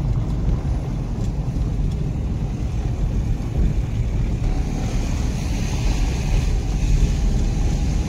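A car driving slowly along a paving-stone road, heard from inside the cabin: a steady low rumble of tyres and engine, with a faint hiss that rises a little about halfway through.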